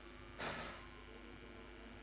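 Cotton fabric being handled and smoothed by hand: one brief soft rustle about half a second in, then quiet room tone with a faint steady hum.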